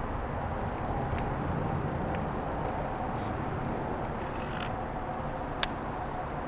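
Steady low background noise with one sharp metallic clink about five and a half seconds in.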